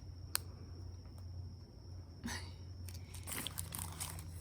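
A sharp click, then a run of crunching, crinkling rustles over a low steady hum.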